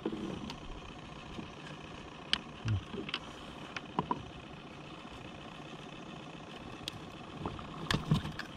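Scattered light clicks and knocks of fishing tackle being handled in a plastic kayak: pliers, a lip-grip tool and lures in the moulded tackle tray, over a steady faint hiss.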